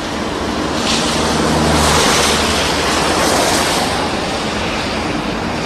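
Cars passing on a rain-wet street: tyre hiss on the wet road over a low engine rumble, swelling as a car goes by about two seconds in.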